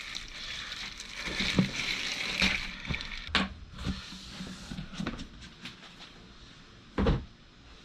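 Rustling and handling noise as a neoprene game mat is unpacked, with scattered light knocks and one heavier thump about seven seconds in.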